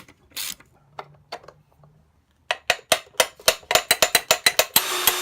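A fast run of sharp ratcheting clicks, about eight a second. Near the end a power drill starts running steadily.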